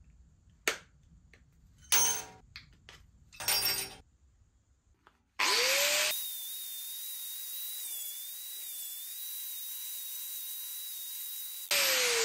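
Three sharp snips as hand cutters clip tabs off a pressed aluminium cap. About five seconds in, an angle grinder with a sanding disc starts up with a rising whine, runs steadily as it dresses the cap, and spins down with a falling pitch near the end.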